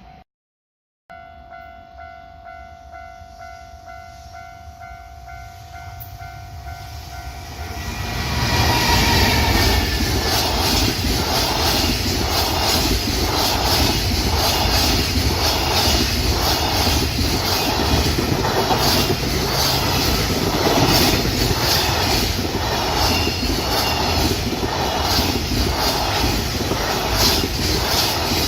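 Japanese level-crossing alarm ringing in a steady tone as a train draws near, growing louder. About eight seconds in the train reaches the crossing and passes close by, loud, with a rhythmic clatter of wheels over the rail joints that swamps the bell.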